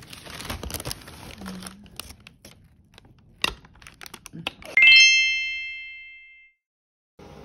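Paper bakery bag crinkling as it is handled, with a few sharp clicks. About five seconds in, a bright chime, a quick rising run of bell-like tones, rings out and fades over about a second and a half as a logo sting, then cuts to silence.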